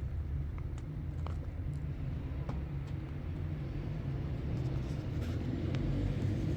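Vehicle engine running steadily, a low rumble with small clicks and rattles, growing slightly louder near the end.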